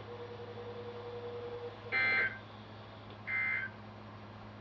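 Emergency Alert System end-of-message data bursts: two short, shrill two-tone digital warbles about 1.3 seconds apart near the middle, with a third starting right at the end. These are the three repeated EOM bursts that close an EAS alert, heard over a low steady hum.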